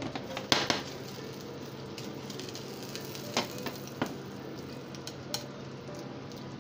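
Beaten egg omelette sizzling in oil in a square nonstick pan as metal chopsticks lift and roll it. A few sharp clicks of the chopsticks against the pan sound near the start and again around the middle.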